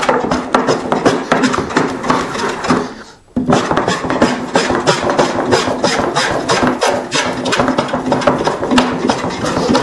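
Fore plane with a heavily cambered iron cutting across the grain of a rough-sawn board in quick, repeated strokes, taking down a high spot, with a brief pause about three seconds in.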